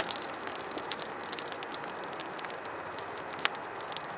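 Dry grass fire burning beside a railroad track: a steady hiss with scattered crackles and pops, one sharper pop about three and a half seconds in.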